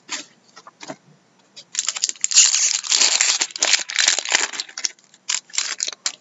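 Foil wrapper of a trading-card pack crinkling and tearing as it is opened by hand. A few light crackles come first, then a dense spell of crinkling for about three seconds, then a few more crackles near the end.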